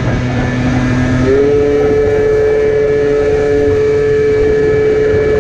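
A Yamaha Slider scooter's tuned 70cc two-stroke engine under way: its revs jump up about a second in, then hold a high, steady whine. Wind noise runs under it.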